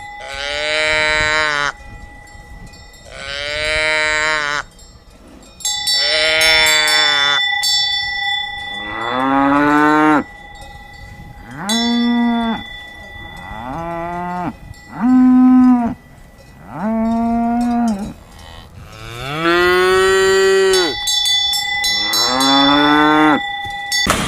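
Cows mooing, about ten long moos one after another, some rising and some falling in pitch, with a steady ringing tone under several of them.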